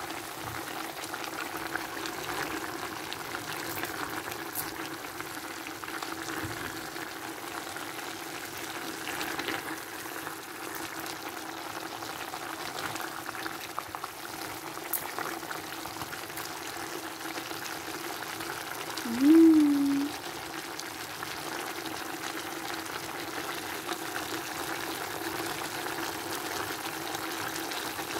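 Pork stew with potatoes, carrots and green peas simmering in a pan, bubbling and sizzling steadily over a steady low hum. About 19 seconds in, a short loud tone rises in pitch and then holds for about a second.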